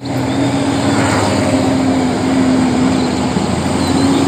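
Concrete mixer truck's engine running as the truck drives along the road: a loud, steady drone with a held low tone.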